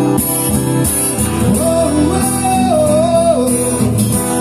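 A song performed live: a singer holds a long wordless note through the middle over steady guitar accompaniment.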